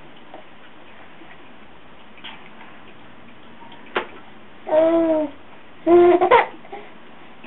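A sharp tap as a baby's hand bats a latex balloon, followed by two short high-pitched baby vocalizations about a second apart.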